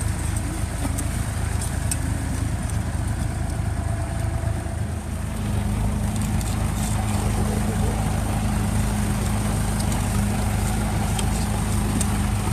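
Vintage tractor engines running steadily under load while pulling ploughs through soil. About five seconds in, the sound changes to a second tractor's engine with a steadier, slightly louder hum.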